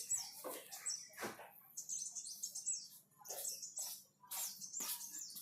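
Small birds chirping: a rapid run of short, high, falling chirps, over scattered rustling and light knocks.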